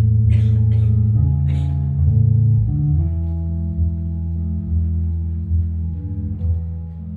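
Instrumental music: long held low bass notes moving between pitches, with plucked guitar above, and three short hissing strokes in the first two seconds.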